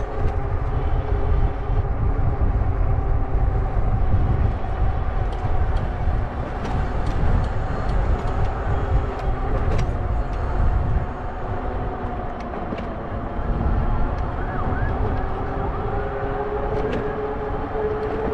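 Wind rushing over the microphone of a moving e-bike, over a steady hum from the Zota Zephyr fat-tire e-bike's motor and tyres that rises slightly in pitch near the end.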